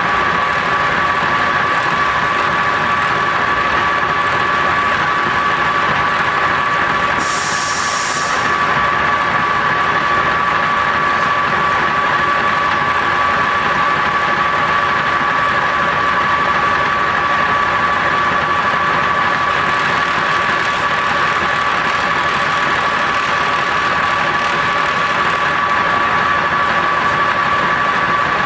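Sebastian A-8 lathe running steadily, a constant whine with two high tones over its mechanical noise. A brief hiss comes about seven seconds in.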